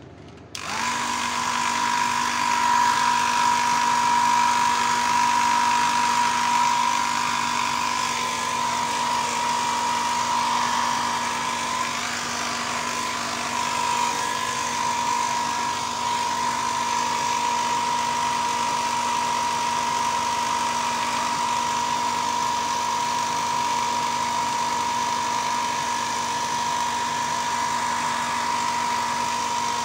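Small airbrush compressor switching on just under a second in and running steadily, with a constant hum and hiss.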